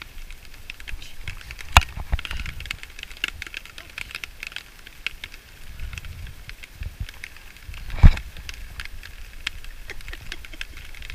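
Raindrops dripping irregularly onto a taut tarpaulin overhead, a scatter of light ticks with two sharper taps, about two seconds in and, loudest, about eight seconds in. A low rumble runs underneath.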